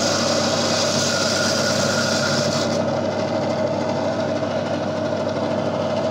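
Gryphon diamond bandsaw running steadily with its blade cutting through the stony skeleton of a Lobophyllia coral. The higher cutting noise stops abruptly about three seconds in as the small piece comes free, and the saw's motor hum carries on unloaded.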